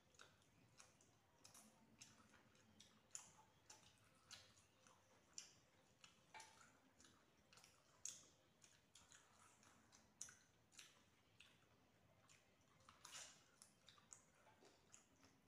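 Faint sounds of two people eating rice and chicken curry by hand: irregular short clicks and smacks of fingers, food and mouths, about one or two a second.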